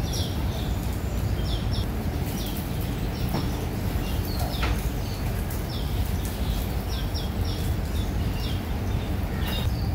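Small birds chirping over and over in short, quick downward notes, over a steady low rumble of background noise.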